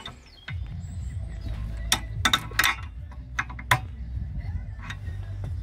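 Sharp metallic clicks and knocks as a bar wedged between the wheel studs levers against a VW Transporter T6's front brake disc, which the electronic parking brake caliper is clamping. The clicks come a few in quick succession through the middle, with one more near the end, over a low steady hum.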